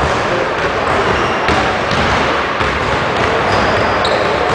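Basketballs bouncing on a hardwood gym floor amid the steady din of a busy gymnasium.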